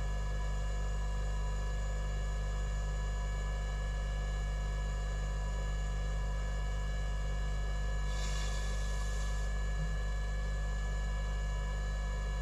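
Steady electrical mains hum, with a brief faint hiss about eight seconds in.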